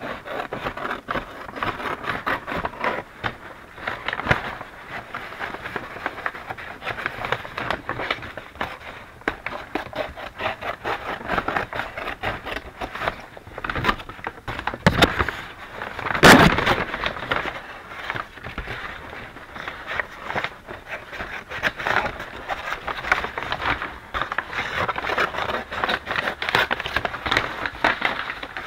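Large brown paper shopping bags rustling and crinkling steadily as they are handled and cut apart with scissors, with one louder crunch about halfway through.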